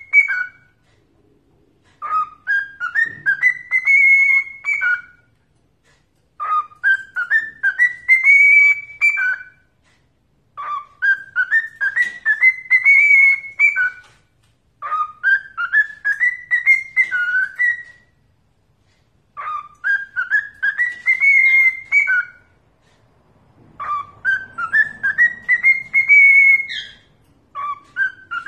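Cockatiel whistling a learned tune: the same short phrase of quick notes stepping upward, then dropping at the end, repeated over and over about every four seconds with brief pauses between.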